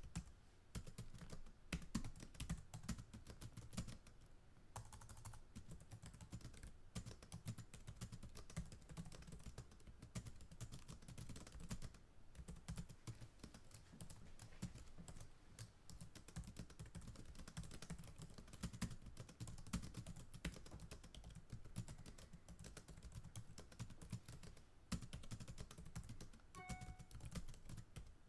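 Computer keyboard typing: a quiet, continuous run of quick key clicks.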